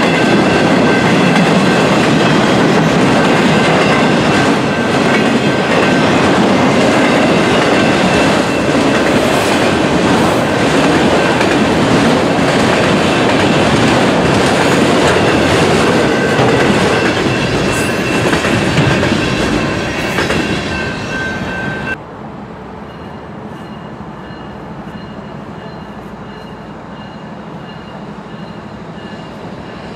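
Railroad cars of a passing train rolling by, wheels clattering on the rails with steady high wheel-squeal tones over the rumble. About two-thirds of the way through the sound cuts abruptly to a quieter stretch of the passing train, with faint squeal.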